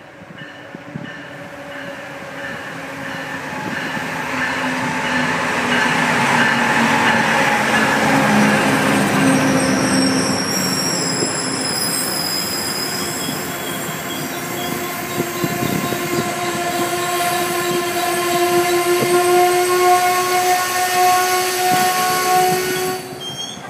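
Amtrak passenger train arriving at a station: a diesel locomotive grows louder and passes about six to ten seconds in, then the passenger cars roll by. A high steady brake and wheel squeal builds through the second half as the train slows.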